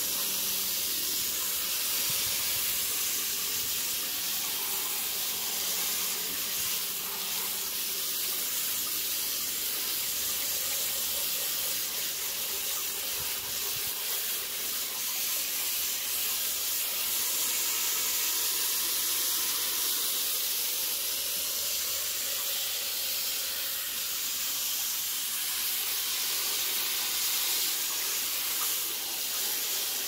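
Garden hose spray nozzle showering water onto coarse decomposed granite grit in a plastic colander, a steady hiss of water rinsing the silt out of the grit.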